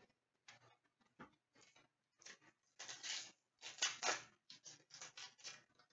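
Hockey trading cards handled at close range: a run of short, faint rustles and slides of card stock, quickening in the second half.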